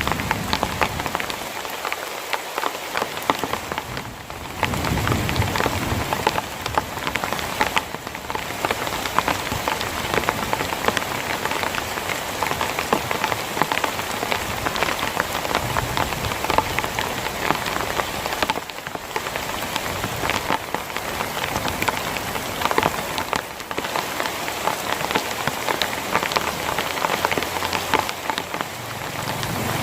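Heavy rain falling steadily: a dense, continuous patter of drops.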